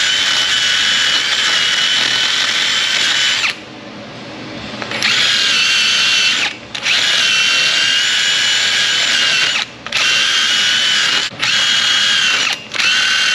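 Cordless drill spinning an abrasive attachment against a rusty wheel-hub face, scouring the rust off to bare metal: a steady high whine with a grinding hiss. It runs in several stretches broken by short pauses, dropping low about three and a half seconds in and slowly building back to full speed.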